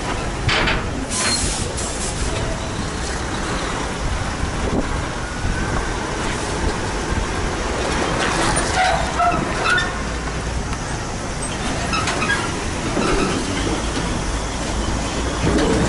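Heavy diesel tractor-trailers passing close by: engine rumble and tyre noise, with the empty skeletal container chassis clattering as it goes past near the middle. A couple of short air hisses about a second in.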